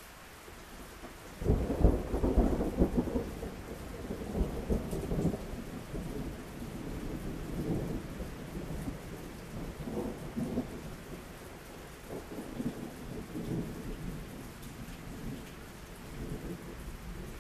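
Thunder breaking out sharply about a second and a half in, its loudest moment, then rolling on as a long rumble that swells again several times, over steady rain.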